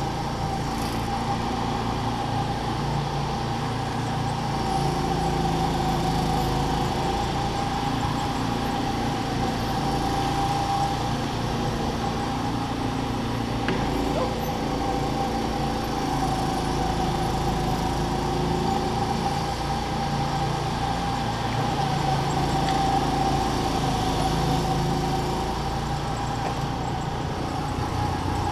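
Go-kart's small engine running under way, heard from on board, its note rising and falling a little as the throttle changes, with a steady high whine over it.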